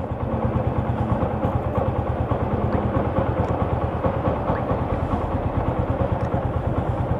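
Motorcycle engine idling steadily with an even, fast low pulse.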